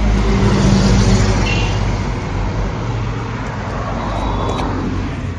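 Road traffic on a highway: the engine and tyre noise of a passing vehicle, loudest about a second in and then slowly fading.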